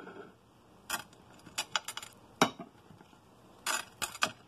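Irregular sharp clicks and clinks of hands handling food and things in a metal baking pan, about seven or eight in all.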